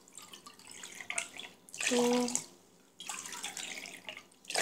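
Water pouring from a glass pitcher into a small stainless steel measuring cup, in two runs with a short break about two seconds in.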